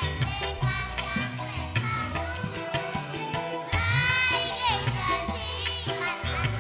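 Primary-school children's choir singing a song over instrumental accompaniment with a steady beat.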